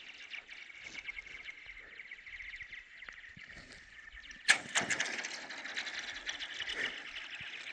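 Thin lake ice, about 2 cm thick, giving off a steady fast chatter of high ticking and chirping. About four and a half seconds in there is one sharp hit on the ice, followed by a quick falling ring of the kind that thin ice makes.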